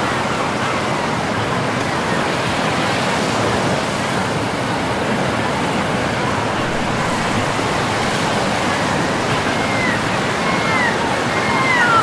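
Ocean surf breaking and washing onto a sandy beach, a steady rush of waves. Near the end, a run of short high chirps rises and falls, about one a second.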